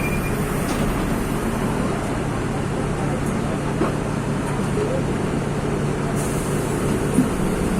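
Mercedes-Benz OM-926 LA diesel engine of an OF-1724 city bus running steadily, a low even hum.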